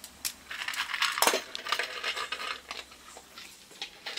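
Dry kibble clinking and rattling against a stainless steel bowl as a small dog eats from it. The clatter comes as a quick run of sharp clicks, thickest and loudest from about a second in, then thinning to scattered clinks.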